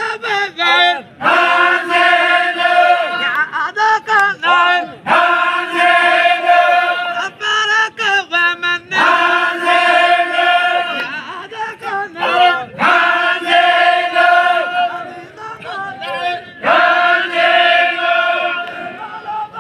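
Group of men singing a Baloch chogan chant together, in repeated phrases of long held notes a few seconds each with short breaks between.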